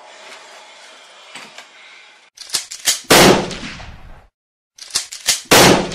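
Two gunshots, each a very loud blast with a short decaying tail, about three and five and a half seconds in, and each led by a few sharp clicks. Between the two the sound cuts out to dead silence.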